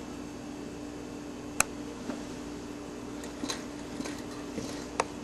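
Homemade Stirling engine's wire crankshaft and linkage clicking at uneven intervals as it turns, the loudest clicks about a second and a half in and near the end, over a steady low hum.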